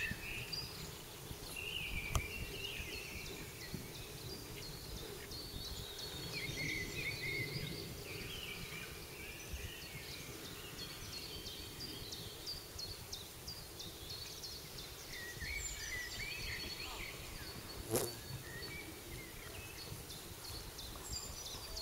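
Outdoor ambience with small birds chirping and singing on and off, and a couple of sharp knocks, the loudest about 18 seconds in.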